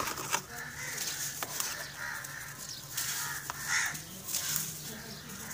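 Dry grey chalky lumps being crushed and crumbled by hand, with crisp crunches and sharp cracks over a crackle of sifting powder.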